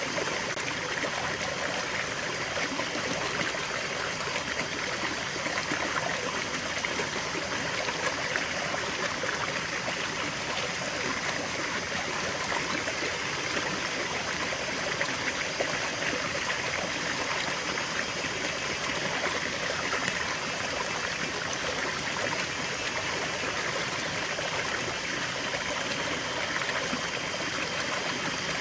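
Small stream running over stones, a steady trickling and babbling of shallow water.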